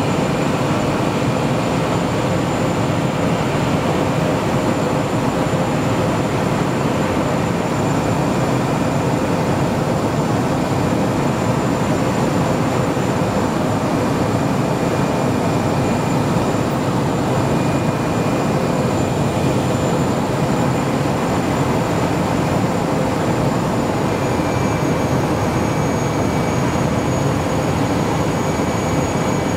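Floatplane engine and propeller heard from inside the cabin: a loud, steady drone with a faint whine riding on it, which drops slightly in pitch about three-quarters of the way through.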